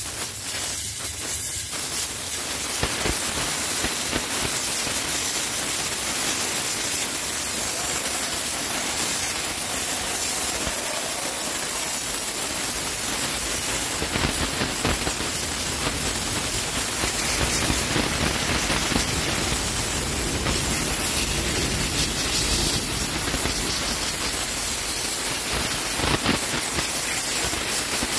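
Optima steam cleaner's wand spraying a jet of steam onto an engine: a steady, continuous hiss.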